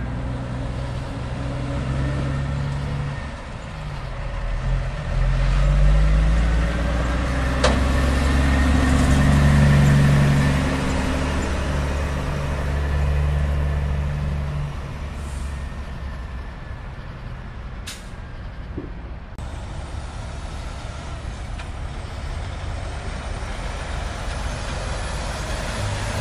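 Diesel engine of a semi-truck hauling a dry-bulk tanker trailer, pulling away and accelerating. Its note rises and drops through gear changes and is loudest about six to ten seconds in, then fades to a lower rumble as the truck moves off.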